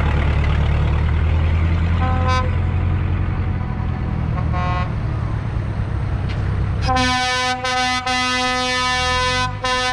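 Heavy tractor engines running with a low rumble, with two short horn toots about two and four and a half seconds in. From about seven seconds in a loud, steady horn blast takes over, broken by a few brief gaps.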